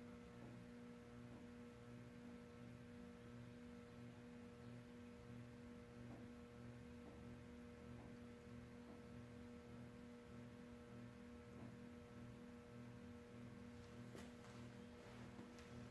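1988 S.M.C. DC42 ceiling fan motor running at its lowest speed on freshly oiled bearings. It gives a faint, steady hum with a soft throb about one and a half times a second. A few faint ticks come near the end.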